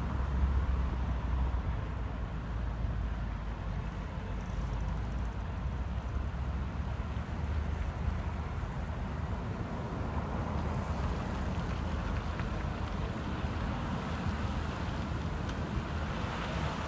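Road traffic: cars driving through a roundabout, a steady engine and tyre rumble, loudest in the first second and swelling again near the end as further cars pass.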